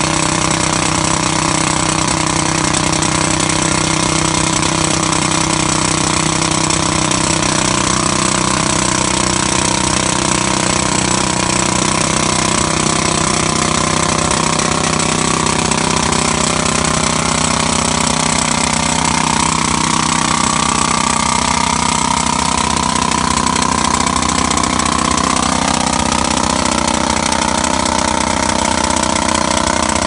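Handheld pneumatic jack hammer (rock drill) with a long drill steel, hammering steadily into a soil slope to bore a soil-nail hole; a rapid, continuous chatter at a loud, even level. A tone in the mix rises slowly in pitch through the second half.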